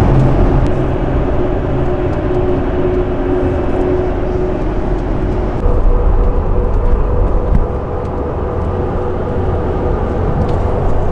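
Steady road and engine drone inside the cab of a 2019 Toyota Tacoma with its 3.5-litre V6 cruising at highway speed while towing a bass boat. The sound shifts in level and pitch about five and a half seconds in.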